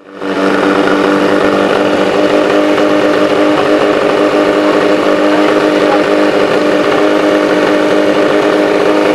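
Portable fire pump's petrol engine running steadily at a constant speed, with an even, unchanging hum.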